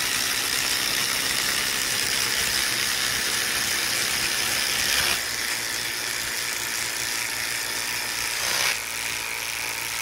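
Three cordless impact drivers, among them a DeWalt and a Makita, rattling as they drive long screws into a wooden stump together. The sound drops a step about five seconds in and again near nine seconds as drivers finish their screws, leaving one still hammering.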